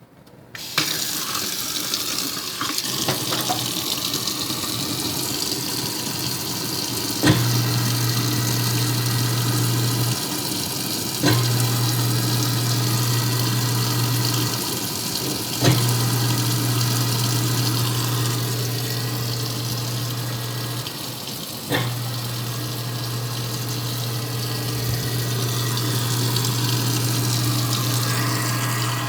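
Tap water running into a sink while a Kuppet 1 HP garbage disposal motor is switched on and off. Its low steady hum starts with a click about seven seconds in and cuts out and restarts three times, running on through the end. The motor is quieter than the water.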